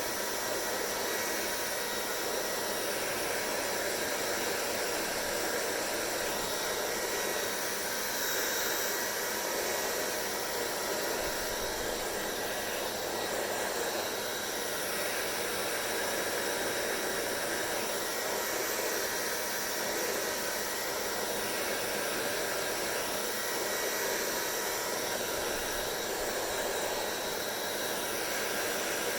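Hair dryer running steadily: a constant rush of blown air with a faint steady whine from the motor and fan.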